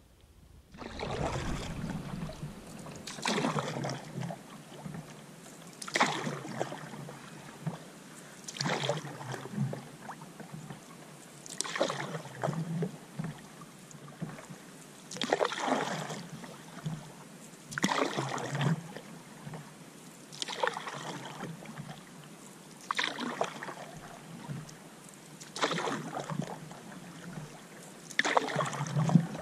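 Canoe paddle strokes on calm water: the blade swishes through the water about every two and a half to three seconds, in a steady rhythm.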